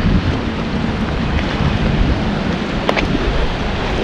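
Creek water rushing steadily over a shallow riffle, with wind buffeting the microphone in a low rumble. A single light click about three seconds in.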